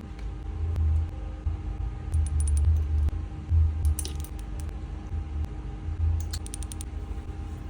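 Small metal objects jingling and clinking in three short bursts over a steady low rumble.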